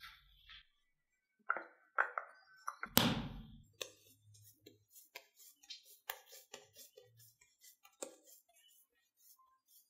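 Hands kneading and rolling soft yeast donut dough on a marble countertop. A few sharp knocks come first, with a heavier thud about three seconds in, then many small irregular taps and clicks as the palms press and roll the dough into a log.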